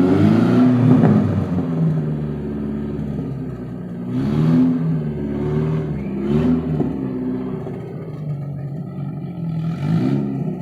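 BMW E12's M10 four-cylinder engine, revved in four short throttle blips that each fall back to idle, with the exhaust crackling as the revs drop.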